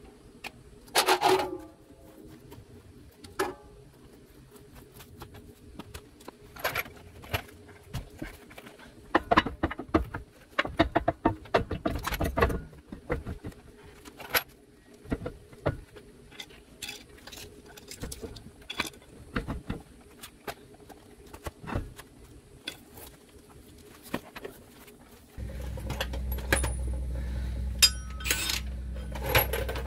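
Scattered metallic clinks and knocks of parts and hand tools being handled at a motorhome's rear wheel, with one louder clatter about a second in. Near the end a steady low rumble starts.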